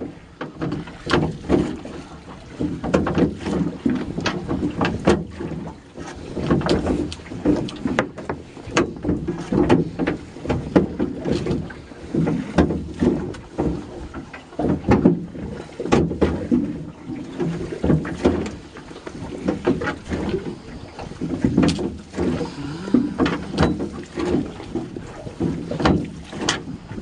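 Fishing net being hauled by hand into a metal boat over the gunwale: frequent irregular knocks and clatters on the hull and rail, with the wet net rubbing and dragging.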